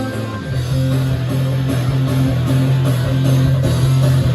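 Rock band playing an instrumental passage led by guitars, with no singing; the low notes shift about half a second in, then hold steady.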